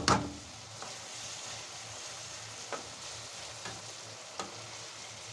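Minced beef and onion sizzling steadily as they fry in a non-stick pan. A few light clicks and scrapes come from the spoon stirring them.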